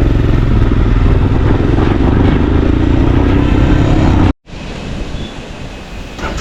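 Motorcycle engine running under way, with a steady engine note and low rumble. The sound cuts off abruptly about four seconds in and returns as a quieter rumble.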